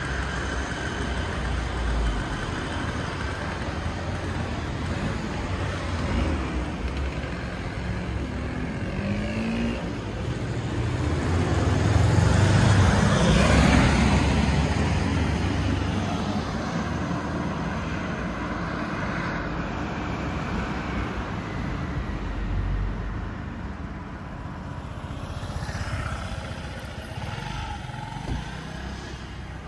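Street traffic: motor vehicles driving past, the loudest going by close about halfway through, and a motor scooter passing near the end.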